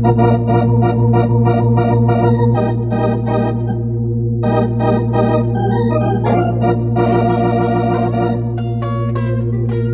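Organ playing a slow blues, holding sustained chords over a steady low bass note. Sharp strummed guitar chords cut in about seven seconds in.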